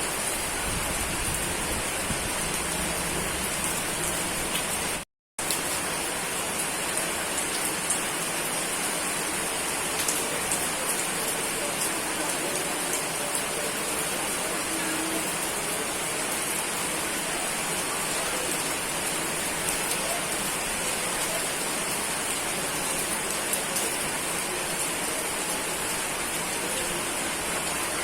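Steady rain falling, an even rushing hiss with scattered patters of individual drops. About five seconds in, the sound cuts out completely for a fraction of a second and then resumes.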